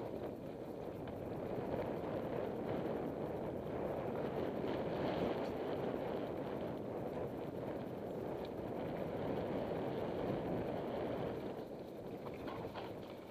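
Mountain bike riding down a dirt singletrack: steady noise of knobby tyres rolling over dirt and rocks, with scattered light rattles and knocks from the bike.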